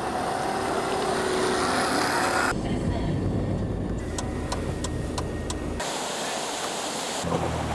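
Quick-cut series of off-road 4x4 clips: engines running at low revs, a few sharp clicks in the middle, and a short stretch of rushing water. Each clip breaks off suddenly into the next.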